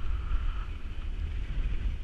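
Wind buffeting the camera microphone of a paraglider in flight: a steady low rumble of airflow noise.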